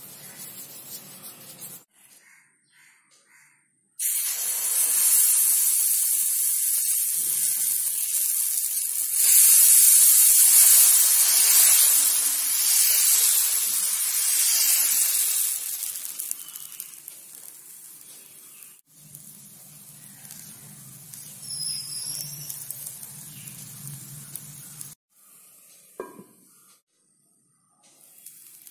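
Dosa batter sizzling on a hot cast-iron tawa. The hiss starts suddenly a few seconds in, is loudest in the middle and dies down after a while.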